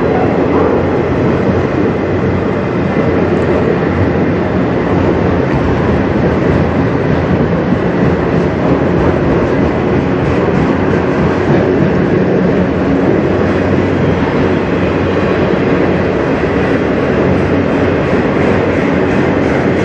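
Freight train of autorack cars rolling past: a steady rumble and rattle of steel wheels on the rails.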